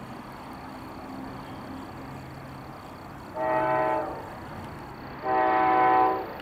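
Two blasts of the approaching Amtrak GE P40DC locomotive's Nathan Airchime five-chime air horn, the second a little longer than the first, over the low hum of the train's diesel engines.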